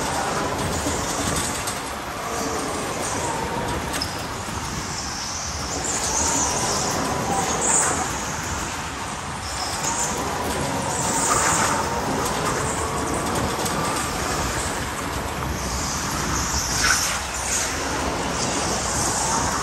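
Go-kart driving hard around an indoor track, heard from the driver's seat. A thin whine from the electric drive motor rises and falls in pitch with speed over a constant rush of wind and tyre noise, with bursts of high tyre hiss and scrub coming and going through the corners.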